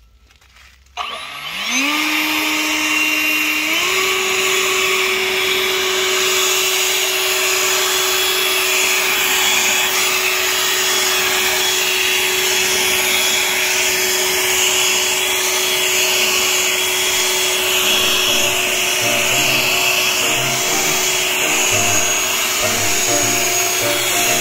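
EGO LB7650E 56-volt cordless leaf blower spinning up about a second in, its fan whine rising in pitch, stepping up in speed once more a few seconds later, then running steady at high speed with a strong rush of air blowing dry leaves.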